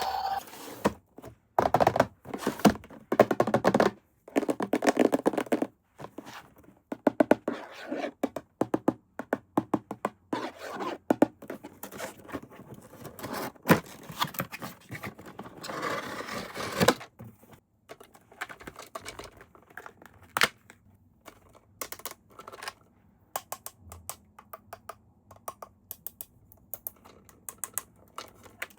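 Toy packaging being opened and handled: many short knocks and clicks with bursts of tearing, scraping and crinkling, busiest in the first half and sparser later.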